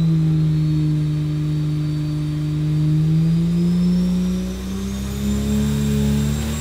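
BMW B58 turbocharged inline-six engine running under load on an engine dyno during a power pull, revving steadily upward from about 3,200 to 4,200 rpm, its note climbing faster after about three seconds. A thin high whine rises in pitch along with it.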